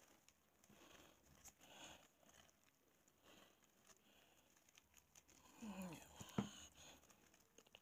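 Faint rustling and pattering of gloved hands tossing and mixing shredded soap in a glass bowl. About six seconds in comes a short pitched sound that dips and rises, then a sharp click.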